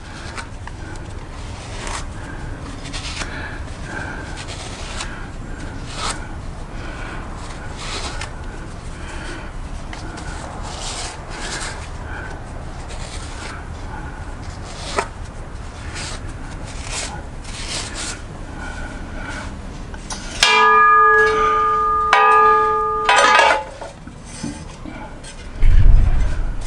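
Repeated short scraping and rubbing strokes as dirt is cleaned out of an engine's flex-plate mounting area. About twenty seconds in, a loud ringing tone sounds for about three seconds with a brief break, and a heavy low thump comes near the end.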